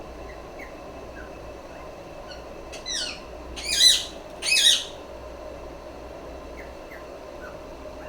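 Ringneck (rose-ringed) parakeet giving three loud calls in quick succession about three to five seconds in, each falling in pitch, with faint short chirps before and after, over a steady background hum.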